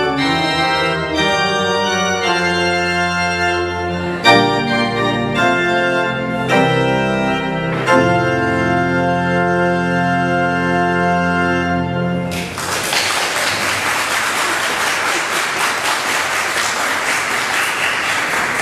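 Pipe organ playing full chords and ending on a long held chord that stops about two-thirds of the way in, followed by applause.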